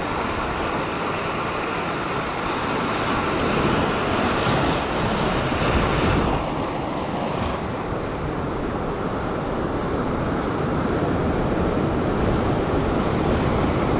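Ocean surf washing and churning over a rock ledge, with a swell surging louder about four to six seconds in. Wind buffets the microphone throughout.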